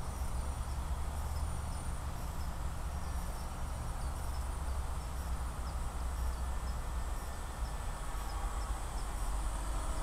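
Steady low rumble of wind on the microphone with a faint insect chirp repeating about twice a second. Toward the end the motor hum of the Tarot Ironman 650 multirotor drone rises as it flies nearer.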